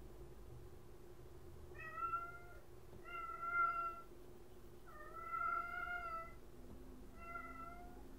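A pet cat meowing four times, a second or two apart, the third meow the longest; the cat wants to be let into the room.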